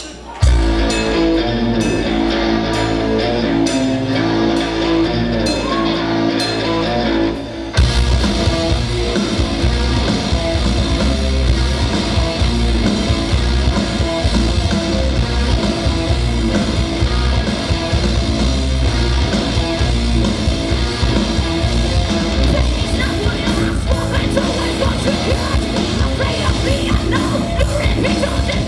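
Metal band playing live: a held, quieter intro with regular cymbal ticks, then distorted guitars, bass and drums crash in together about eight seconds in, with singing over the full band.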